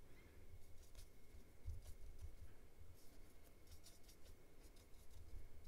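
Faint scratchy strokes of a round paintbrush dabbing and dragging alcohol ink across polypropylene film paper, over a low rumble.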